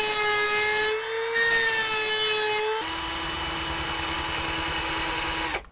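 Rotary tool with a cutoff wheel grinding down stripped screw heads on a servo case: a loud, steady high whine with grinding hiss, easing briefly about a second in. Just before 3 s it gives way to a cordless drill running steadily at a lower pitch as it drills into the servo, stopping shortly before the end.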